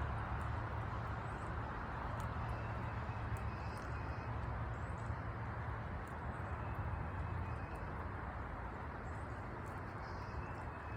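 Steady traffic rumble and hiss, with a person's heavy, Darth Vader-like breathing close to an iPhone's microphone.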